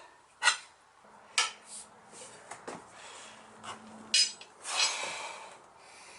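Sharp metallic clinks and knocks of tools against a steel clincher wheel rim as a tyre is worked onto it, three louder strikes among lighter ticks, with a scraping rub about five seconds in.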